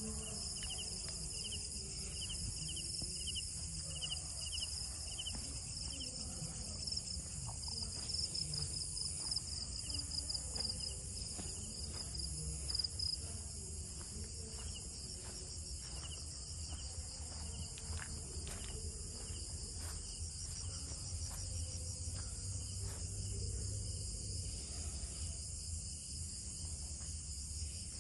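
A night chorus of insects chirping in several steady, overlapping high-pitched trills, with a low rumble underneath and a few faint ticks.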